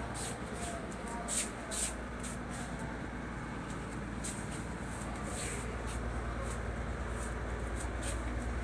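Houseboat's engine running as a steady low hum, with a few short soft rustles over it.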